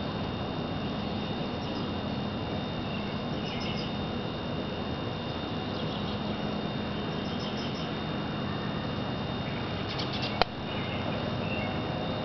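Evening outdoor ambience: a steady hiss with two thin, steady high tones, a few faint high chirps, and one sharp click about ten seconds in.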